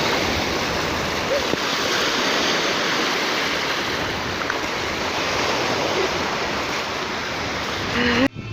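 Sea surf washing onto the shore, a steady rushing noise, which cuts off abruptly near the end.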